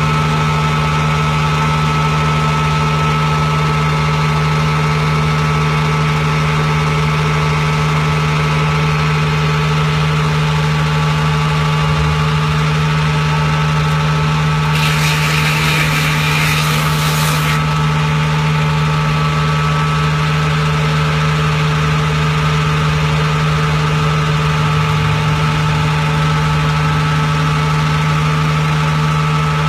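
A cesspool pumping truck runs steadily with an even, engine-like hum. About fifteen seconds in, a burst of hiss lasts nearly three seconds and then cuts off.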